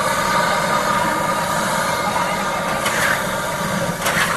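Street noise: a steady traffic hum with voices mixed in.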